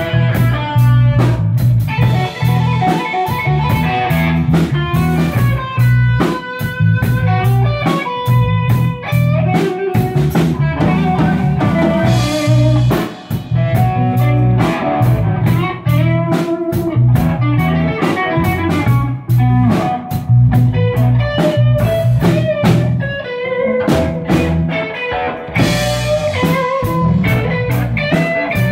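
Live band jam: several amplified electric guitars playing over a drum kit, loud and continuous with a steady beat.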